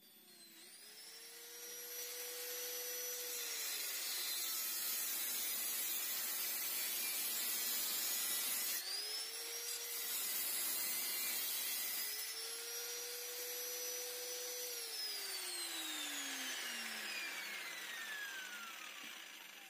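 Handheld electric angle grinder cutting through a vehicle's exhaust pipe. The motor whine rises to speed three times, with a harsh grinding hiss of the disc on metal between. Over the last few seconds it winds down slowly after switch-off.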